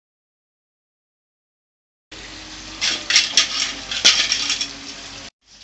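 About two seconds of silence, then murukku dough frying in hot oil: a steady sizzle with sharp crackles that stops suddenly near the end.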